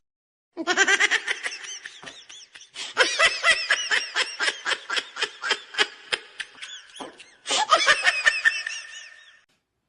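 High-pitched laughter in quick repeated bursts, with a short break about seven seconds in.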